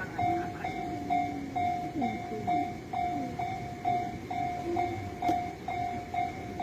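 Japanese level-crossing warning alarm ringing steadily, an electronic two-tone ding repeated about three times a second. A train's running noise sits beneath it.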